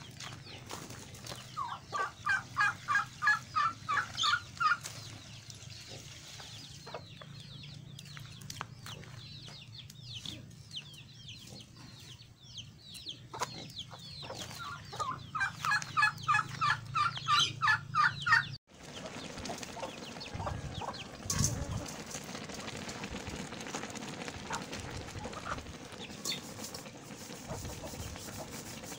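A chicken clucking in two quick runs of evenly spaced clucks, about three a second: one a couple of seconds in and another about halfway through. A low steady hum lies under it. Near the end the sound gives way to a quieter even background with an occasional knock.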